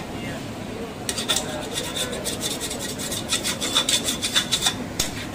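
Metal ladle scraping around the inside of an aluminium cooking pot in a run of quick strokes, several a second, from about a second in until shortly before the end, with a faint metallic ring.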